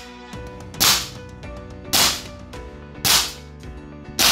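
Green-gas blowback airsoft pistol, a KJW M9 Vertec, firing four single shots about a second apart at a cardboard target, each a sharp crack with a short ring-out.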